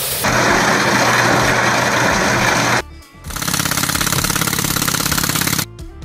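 Heavy construction machinery running loudly in two cut-together stretches, the second with a fast, even pulsing rhythm.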